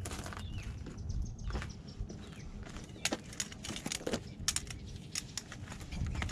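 Footsteps on a hiking trail: irregular scuffs and clicks at an uneven pace over a low steady rumble, with a brief bird chirp near the start.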